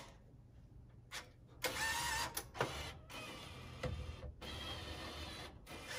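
IGT Double Diamond Deluxe slot machine powering back on: a mechanical whirring with steady tones in it, most likely the reel motors, comes in several spells that stop and start abruptly, with a few clicks between them.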